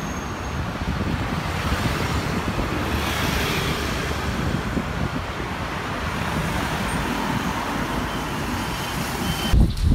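Road traffic on a city street: cars and a scooter driving past in a steady wash of tyre and engine noise, swelling as a car passes close about three seconds in.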